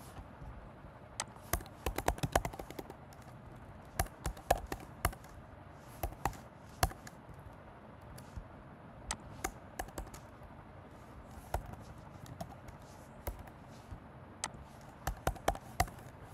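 Computer keyboard typing in short, irregular runs of keystrokes with pauses of a second or more between them.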